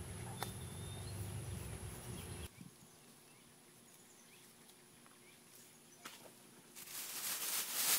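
Dry bark tinder rustling in the hands over a low rumble for the first couple of seconds, then near quiet. About seven seconds in, a loud crackling hiss starts as the bird's-nest tinder bundle catches and flares into flame.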